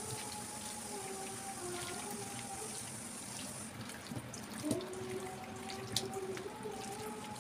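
Wet squelching and small clicks of a hand kneading pieces in a wet masala in a steel bowl, with a few sharper clicks about five and six seconds in. Soft background music with a slow, simple melody plays throughout.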